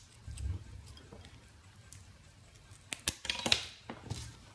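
Small metal clicks and light scraping as a metal tool pries the steel retaining clip off a tiny ferrite-core transformer, with a sharper cluster of clicks about three seconds in.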